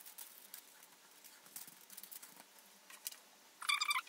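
Soft crinkling and tapping of baking paper on a baking tray as fingers press and pinch the rim of pide dough. Near the end there is a brief high-pitched squeak, the loudest sound.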